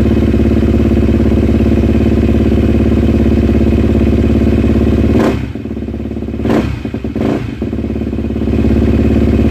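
Dirt bike engine running steadily; a little after five seconds in it drops in level, with a few sharp blips, and picks back up to a steady run about three seconds later.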